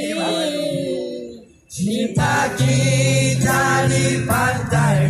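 Live amplified busking music. A sung note is held, wavering, and fades out about a second and a half in. After a short break the music comes back in loudly, with acoustic guitar, a steady low note underneath and singing.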